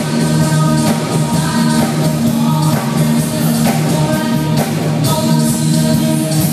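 Live pop-rock band with a woman singing: a steady drum beat under held keyboard and guitar chords, loud and continuous.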